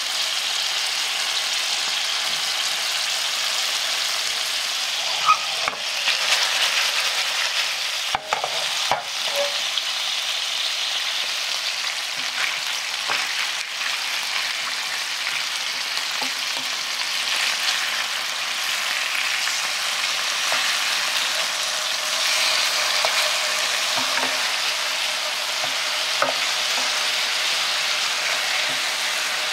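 Salmon fillets with sliced ginger and garlic sizzling steadily in hot oil in a nonstick frying pan. A few short clacks of two wooden spatulas against the pan come as the pieces are turned over.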